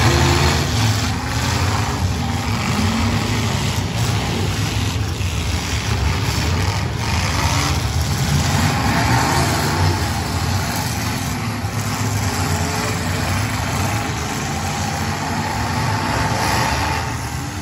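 Several demolition derby cars' engines running and revving together, their pitch rising and falling as the cars push and ram each other. A few sharp crashes of cars hitting each other come through.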